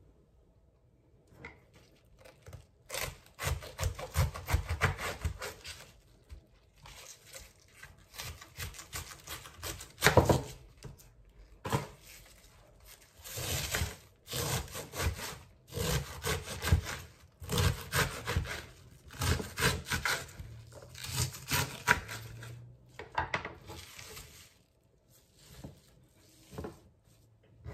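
Kitchen knife cutting cabbage and other vegetables on a wooden chopping board, in bursts of quick strokes with short pauses between them.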